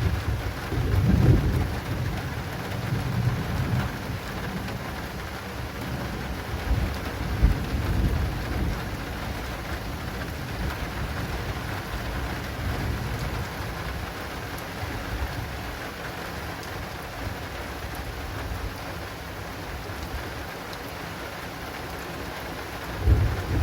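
Steady heavy rain pattering on an acrylic awning. Low thunder rumbles roll through the first several seconds and die away, and another rumble of thunder starts near the end.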